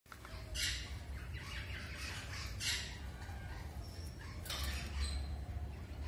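Rosella parrot giving short, noisy calls, three main ones about two seconds apart, over a steady low hum.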